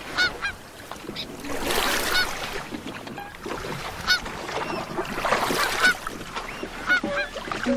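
Geese honking: many short calls scattered over swells of rushing noise.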